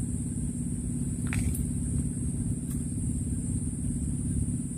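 Steady low rumble with a constant mechanical hum, like a motor running, and a faint tick about a second in.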